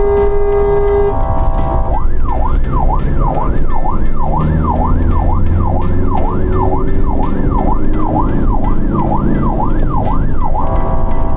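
An emergency-vehicle siren in a fast yelp, its pitch sweeping up and down about twice a second, over a steady beat. It starts about two seconds in and gives way near the end to a steady chord of several tones.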